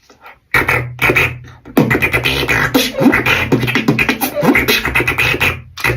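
Beatboxing: a fast run of mouth-made percussive hits over a steady low hummed bass, with short sliding pitched notes, starting about half a second in.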